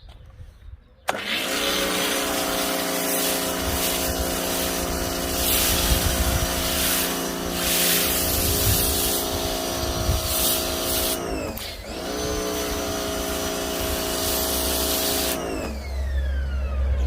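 Pressure washer running with the snow foam lance spraying: a steady motor-pump hum under a loud hiss of spray. It starts suddenly about a second in, dips and picks up again briefly about two-thirds of the way through, and stops near the end.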